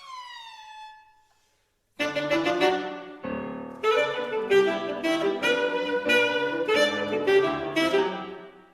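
A held note slides downward and fades out, then after a short pause a saxophone and piano break into a fast, busy passage of sharp, repeated chords and notes, which dies away near the end.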